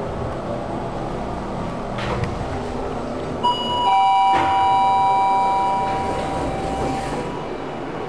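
Schindler Elegant MRL elevator's arrival chime: a higher bell note, then a lower one half a second later, both ringing on for a few seconds as the car stops at the floor. It comes over the steady hum of the car, after a click about two seconds in, with a knock as the doors start to open.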